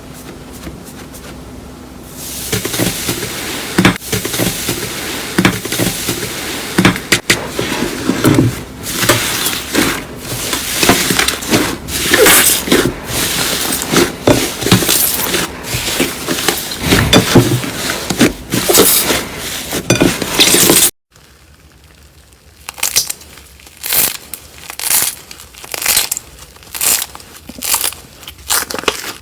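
Slime being squeezed and pressed by hand, making dense crackling and popping with many sharp clicks. After a sudden cut about two-thirds of the way through, the sound turns quieter, with separate pops and squishes.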